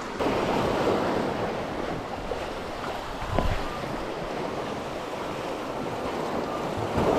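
Sea waves washing around the concrete tetrapods of a breakwater, with wind on the microphone. A single brief knock sounds a little over three seconds in.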